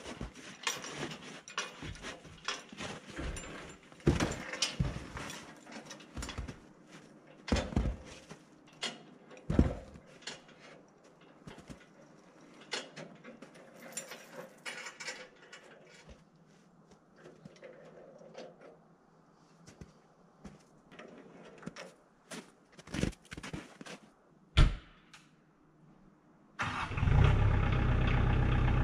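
Scattered knocks, clanks and rattles as a metal sawmill trailer is hand-rolled off wooden ramps onto snow. Near the end the tractor's engine starts and runs steadily.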